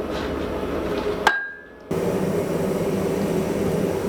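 A single sharp hammer blow on steel about a second in, with a short metallic ring, over a steady background noise of the forge shop.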